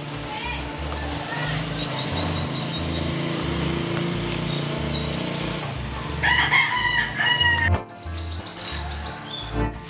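A rooster crowing about six seconds in, with a small bird's fast run of high, falling chirps, about six a second, at the start and again near the end.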